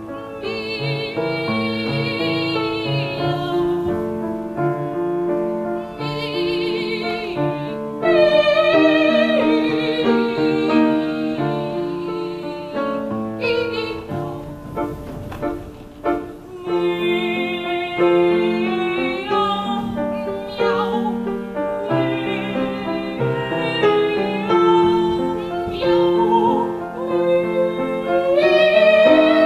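Youth choir singing in parts with grand piano accompaniment, holding long notes with vibrato.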